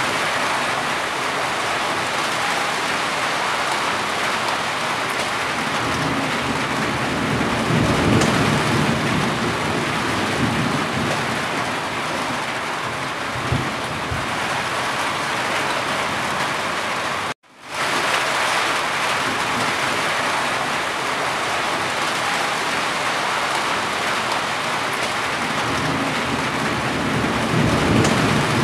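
Steady heavy rain falling on and running off a corrugated roof, a dense even hiss. A low rumble swells up twice. The sound cuts out for an instant just past the middle.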